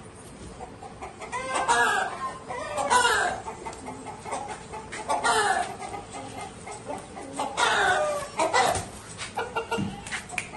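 Roosters clucking and calling: a string of about five or six short calls, each under a second, spaced a second or two apart.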